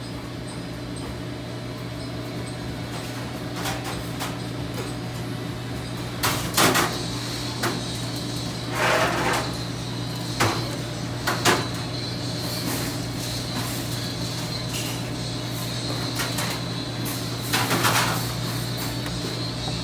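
Steady low hum of kitchen background noise, with about six short rustles and knocks as hands handle puff pastry and the parchment paper under it.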